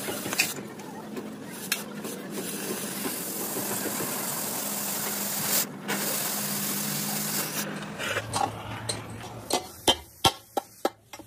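Oxy-fuel cutting torch hissing steadily as it burns through steel plate. Near the end, about half a dozen sharp knocks as the cut steel piece is handled.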